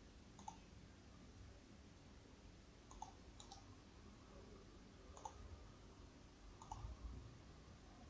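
Faint computer mouse clicks, about five spread across the seconds, over a low, steady room hum.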